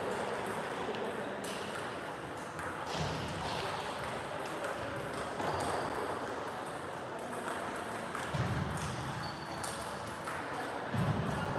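Table-tennis ball being struck by bats and bouncing on the table, heard as a handful of sharp clicks spaced a second or more apart, echoing in a large sports hall over a steady background murmur.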